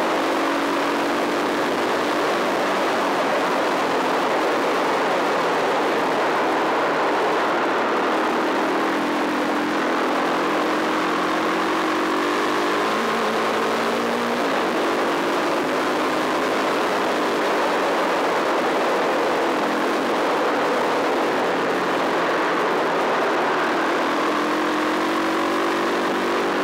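Off-road motorcycle engine under way on a gravel track, its pitch rising and falling again and again with throttle and gear changes, with a sharper drop and climb about halfway through, over a steady rush of noise.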